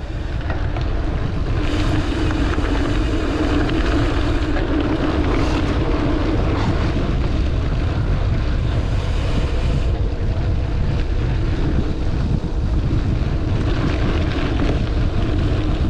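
Wind rushing over the microphone and mountain bike tyres rumbling on a dirt forest road during a fast descent.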